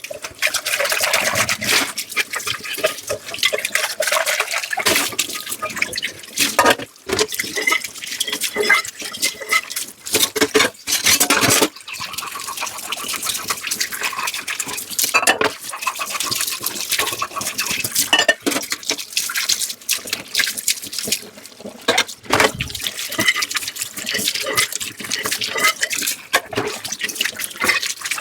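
Dishes being washed by hand under a running tap: water running and splashing in the sink, with scrubbing and frequent clinks and knocks of dishes throughout.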